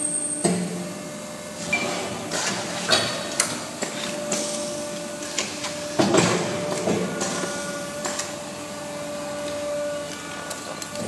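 Injection molding machine running: a steady mechanical hum with a held whining tone, broken by a series of sharp clanks and knocks a couple of seconds in and a louder clank about six seconds in as the mold and the take-out robot arm move.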